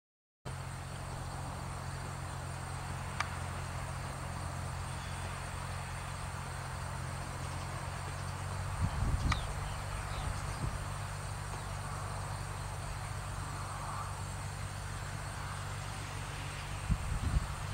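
John Deere 5403 tractor's three-cylinder diesel engine running steadily as it pulls a side-delivery hay rake, heard from a little way off. A steady high insect trill runs underneath, and a few low thumps come near the middle and again near the end.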